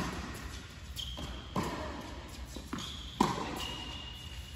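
Tennis ball struck by rackets and bouncing on an indoor hard court in a rally, several sharp pops that echo in the large hall, the loudest about three seconds in. A couple of short high squeaks come between the hits.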